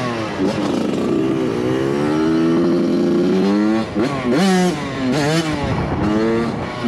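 Suzuki RM85 two-stroke dirt bike engine revving hard while ridden. Its pitch climbs, holds steady for about two seconds, drops, then rises again in two quick blips past the middle before settling.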